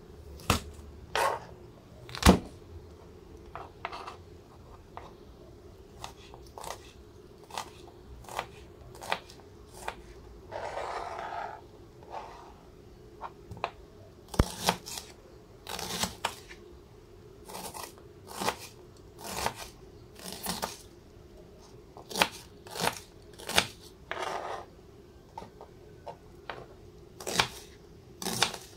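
Kitchen knife cutting a red onion on a plastic cutting board: uneven sharp cuts and taps of the blade on the board, a few seconds apart, with a longer rustling scrape about eleven seconds in. A faint steady hum runs underneath.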